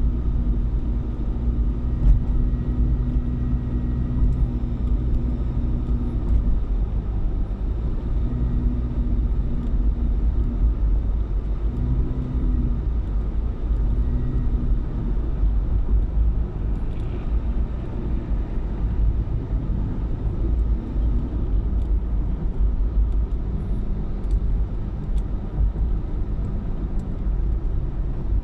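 Car driving along: a steady low rumble of engine and road noise with a faint engine hum that shifts in pitch now and then.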